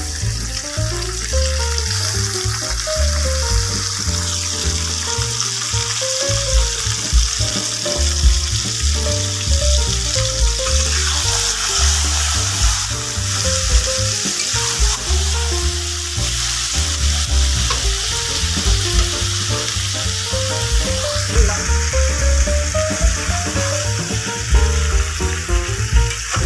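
Raw mutton pieces sizzling in hot oil in an iron kadai, a steady hiss, with a metal spatula stirring and turning the meat. Background music with a steady bass beat plays over it.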